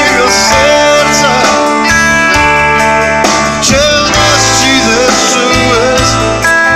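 Live blues-rock band playing an instrumental passage: an electric guitar lead with long held notes that bend and waver in pitch, over bass guitar and drums.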